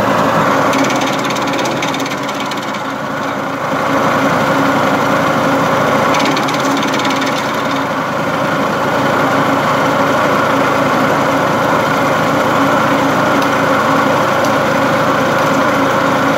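Petrol-engined garden branch chipper with a 7 hp engine running steadily while branches are fed in and chopped into chips, with sharp cracks of wood being cut. The level dips briefly twice, in the first few seconds and again about seven seconds in.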